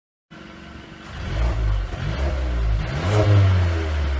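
Mercedes-Benz A220's turbocharged four-cylinder engine and exhaust revving, the sound coming in about a second in after a brief silence. The revs rise and fall, with the loudest rev near three seconds in.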